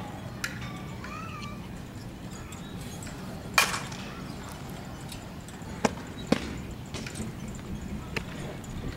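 Softball bat hitting a ball once, a sharp crack about three and a half seconds in, followed about two seconds later by two lighter knocks a half second apart.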